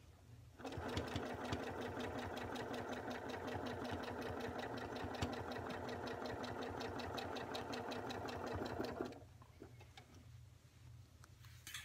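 Janome Memory Craft home sewing machine stitching at a steady speed during free-motion ruler quilting: a motor hum with a rapid, even ticking of the needle. It starts about half a second in and stops about nine seconds in.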